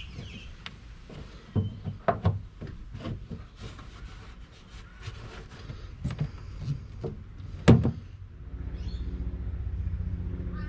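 Clicks and knocks of hands working hose, wiring and plastic fittings against an aluminium boat hull, the loudest a sharp knock about three-quarters of the way through. Near the end a steady low hum sets in.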